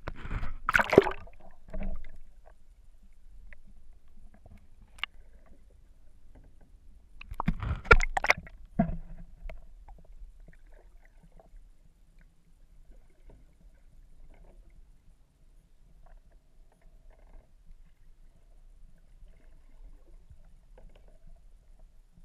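Seawater splashing and sloshing around a waterproof action camera as it is dunked at the surface, with two loud splashes about a second in and around eight seconds in. After that comes a faint, low, muffled underwater rumble with small scattered ticks.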